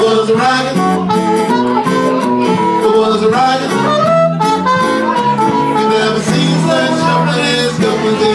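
Live blues band playing an instrumental passage between sung lines: an electric bass line under a steady beat, with melodic lead notes over it.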